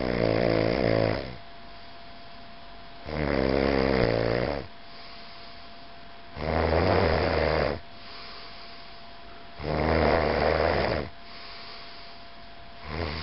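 A sleeping person snoring, one long snore about every three seconds: four full snores, and a fifth beginning near the end.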